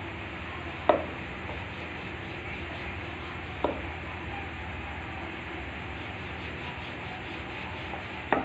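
A wooden rolling pin worked over a slice of white bread on a marble countertop: three short sharp knocks of the pin on the stone, about a second in, near four seconds and near the end, over a steady low hiss.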